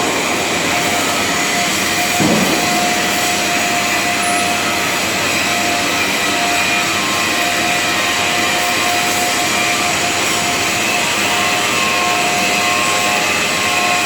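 Automatic submerged arc welding equipment running: a steady machine drone with a constant hum-like tone over a noisy hiss.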